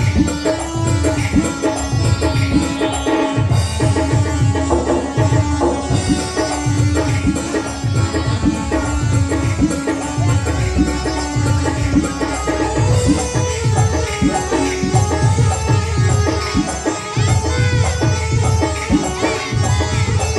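Loud film music with a driving tabla-style drum beat under a sustained melody.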